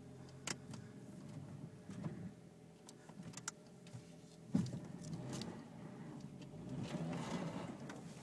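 2003 Honda's engine running steadily after a cold start, heard from inside the cabin, with scattered clicks and a sharp knock about halfway through.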